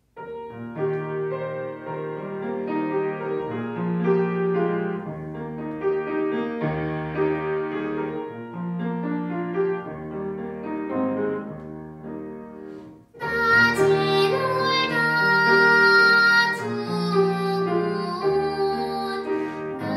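A grand piano plays a gentle introduction. About two-thirds of the way through, a young girl's classically trained voice enters, singing a Korean children's song over the piano accompaniment.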